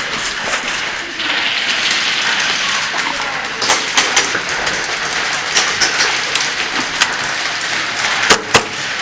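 Steady rustling of a player on the move in an airsoft game, with a handful of sharp snaps scattered through it, typical of airsoft shots and BB hits on the field.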